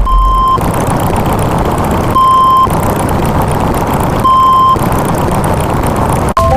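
A half-second electronic beep repeating about every two seconds, three times, over a loud steady noise.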